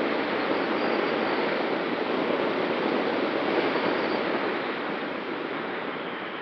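Steady rush of wind and airflow over a camera mounted on a glider's wing in flight. It swells slightly in the middle and eases off a little near the end.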